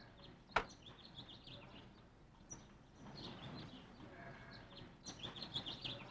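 Small birds chirping faintly in short clusters of high chirps, with one sharp click about half a second in.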